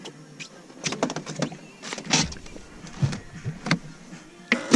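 A run of irregular knocks and clatters from handling things in a small fishing boat, starting about a second in.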